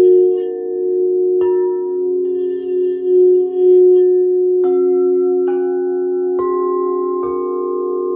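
Crystal singing bowls ringing: one bowl sung around its rim with a frosted crystal wand, its low tone pulsing. Other bowls are struck once about a second and a half in, then four times in quick succession from about halfway, each strike adding a new ringing pitch over the held tones.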